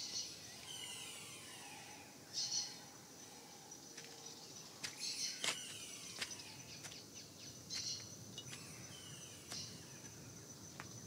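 Tropical forest ambience: birds call with repeated short chirps and falling whistles every few seconds over a steady high insect hum. A few sharp clicks come in the middle.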